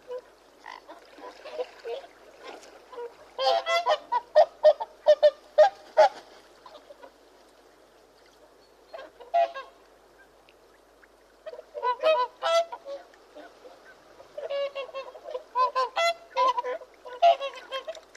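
Geese honking: bursts of short, repeated calls, about four bouts with quieter gaps between them.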